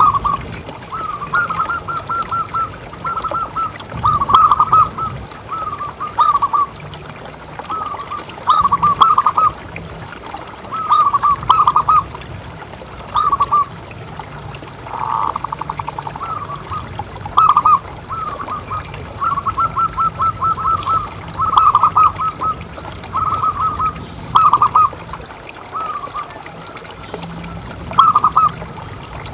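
Zebra doves cooing: short rippling phrases of rapid coos, repeated every second or two.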